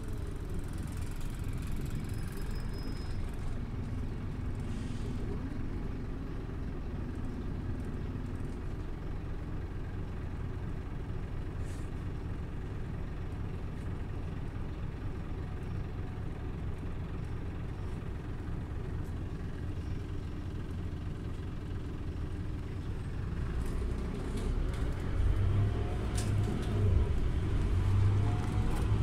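Scania OmniLink CK270UB city bus heard from inside: steady low rumble of its five-cylinder diesel engine, growing louder and heavier over the last few seconds.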